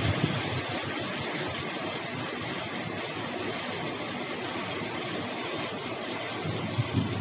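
Steady hiss of light rain, with a few low thumps just after the start and again shortly before the end.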